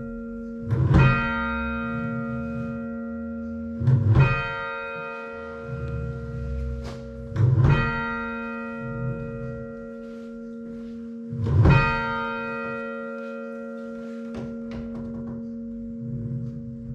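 Church bells rung full-circle with muffled clappers, giving dull thuds, while the tenor, left open at backstroke, strikes out clearly four times, its ringing tone hanging on between strikes. This is fully muffled ringing for mourning.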